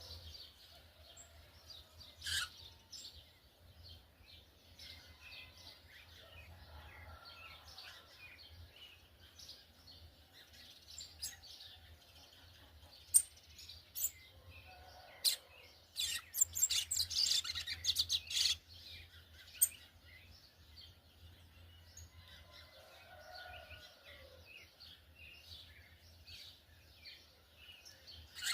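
Brown-plumaged yellow-bellied seedeater (coleiro baiano) twittering its soft, rambling chattering song ("churrio") in a string of quick chirps and trills. About sixteen seconds in comes a louder, denser stretch of sharp chips and clicks for a couple of seconds. A faint low hum lies underneath.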